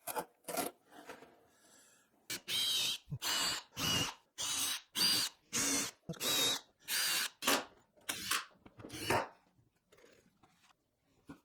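Power drill run in a series of short trigger bursts, about two a second, with a faint high whine in each. A few more bursts follow near the end.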